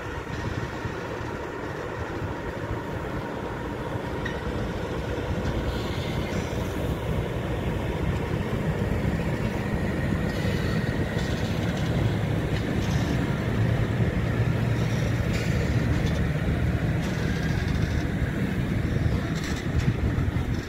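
PKP Cargo ET22 electric freight locomotive hauling a long train of hopper wagons out of the station. Wheels roll on the rails with a steady running noise that grows slowly louder as the wagons pass, with faint thin whines over it.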